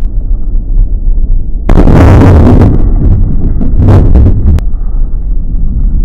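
Sledgehammer smashing a watermelon: loud, deep booming crashes over a steady low rumble, the biggest starting about two seconds in and lasting about a second, with two shorter hits near the middle.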